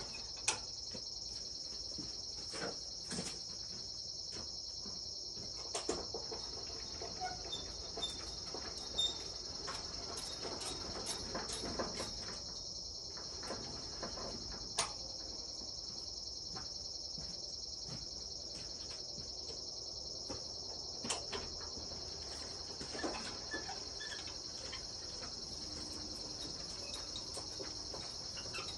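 Insects, cricket-like, trill in a steady, unbroken high-pitched chorus. Scattered short clicks and knocks sound over it, the sharpest near the start and about nine and fifteen seconds in.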